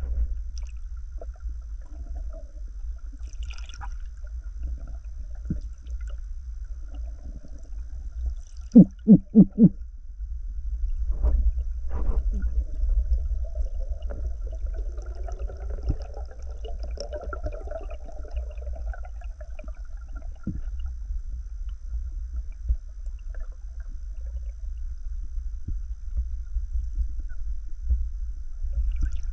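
Underwater sound picked up by a diving camera: a steady low rumble of water movement with scattered clicks and knocks, and a quick run of four thumps about nine seconds in. A faint wavering hum comes in for several seconds past the middle.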